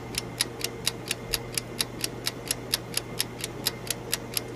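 Clock-ticking sound effect of a quiz countdown timer, about four to five ticks a second, over a low steady hum.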